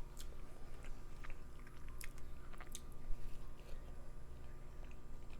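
A person chewing mouthfuls of Indian curry dishes, with scattered wet mouth clicks and smacks.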